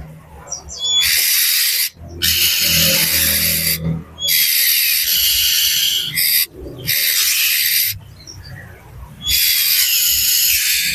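Oriental magpie-robin (kacer) giving harsh, hissing rasps, five bursts of one to two seconds each with short pauses, some opening with a brief clear note: its noisy, agitated calling.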